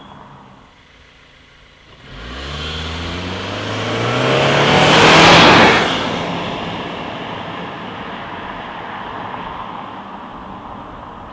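A 2016 Subaru WRX with a 2.0-litre turbocharged boxer four-cylinder accelerates hard past. The engine note starts suddenly about two seconds in and climbs in pitch. It is loudest a little after five seconds in as the car passes, then fades away.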